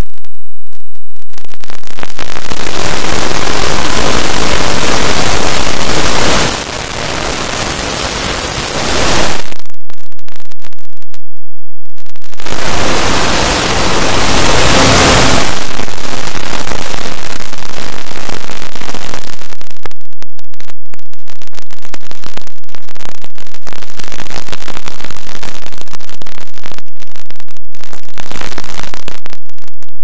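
Harsh, heavily distorted static-like noise, clipped near full scale, with two short dips in loudness.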